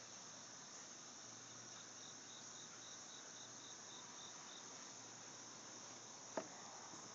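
Faint steady chorus of insects chirring. For a few seconds in the first half, a run of about ten evenly spaced short chirps stands out, and one sharp click comes near the end.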